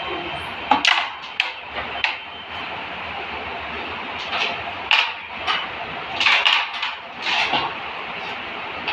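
Carrom game play: the striker flicked across the wooden board, clacking sharply against the carrom men and knocking them into the frame, a string of short clicks and knocks, thickest in the second half.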